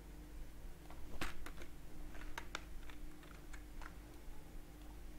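Computer keyboard keystrokes: a string of separate key clicks, clustered in the middle seconds, over a faint steady electrical hum.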